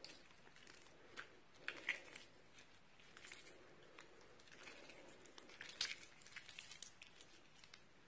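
Crunchy slime being stretched and squeezed by hand, giving faint sticky squishing with scattered sharp crackles and pops, the loudest about two seconds in and about six seconds in.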